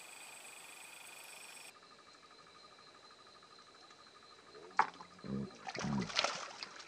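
Insects chirring steadily in the background, with several high steady trills; the sound changes abruptly about two seconds in. Near the end comes a sharp click, followed by a person's wordless voice.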